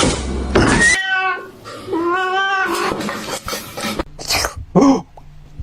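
Domestic cat yowling and meowing: a few drawn-out calls, the longest wavering about two seconds in, then several short breathy sounds.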